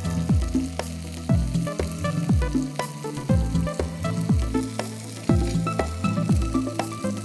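Chicken pieces on toothpick skewers sizzling in a hot grill pan, under background music with a steady deep bass beat about once a second.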